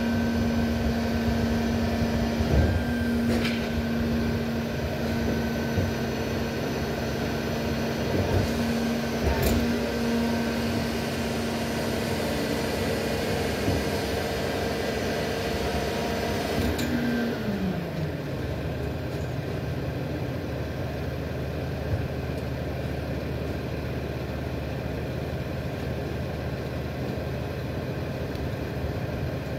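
Diesel engine of a Freightliner trash truck running with a steady whine, then the whine slides down in pitch and dies away about 17 seconds in, leaving a lower steady idle. There are a few sharp knocks along the way.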